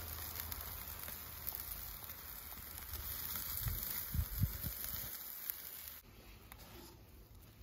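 Faint sizzling and crackling of beef patties and buns on a charcoal grill grate, with a few soft knocks as a spatula lifts the patties off. About six seconds in the sound drops away to much quieter.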